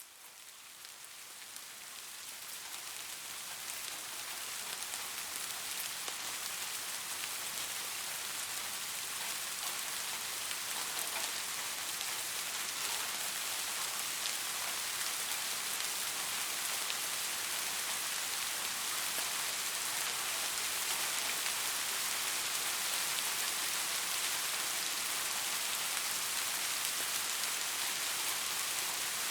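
Steady rain falling, a dense patter of drops, fading in over the first few seconds and then holding even.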